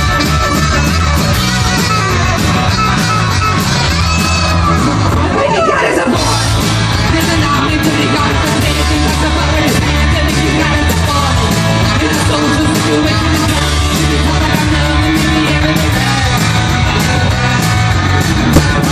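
A live rock band playing loudly, with saxophone, drums and electric guitar.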